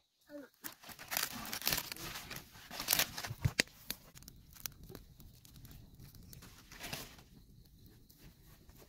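Rustling and crinkling with many sharp clicks, loudest in the first few seconds and then fading to scattered faint clicks.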